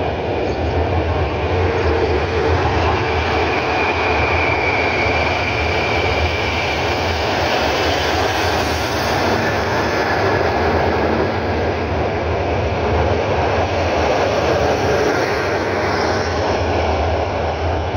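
SA136 diesel multiple unit running and moving past close by. Its engine and rolling noise make a loud, steady rumble, with a high whine for a few seconds near the start.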